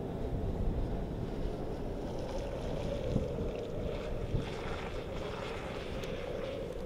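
Wind gusting hard on the microphone, with a tornado warning siren holding a steady wail behind it.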